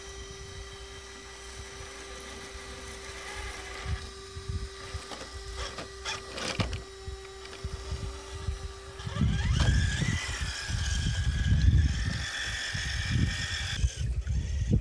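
Traxxas TRX-4 Sport RC crawler's electric motor and drivetrain whining steadily as it creeps over a rock, with a few sharp clicks midway. About nine seconds in the motor revs up in a rising whine and a low rumble comes in.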